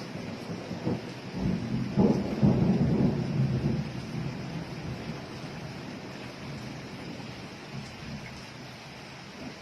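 A thunderclap rumbling, loudest about two seconds in and dying away over the next few seconds, over steady rain.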